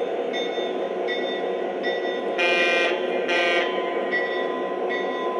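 Lionel model locomotive running on the layout track with a steady rumble of motor and wheels, its electronic bell ringing over it about once every three-quarters of a second. Two short horn blasts sound a little before halfway.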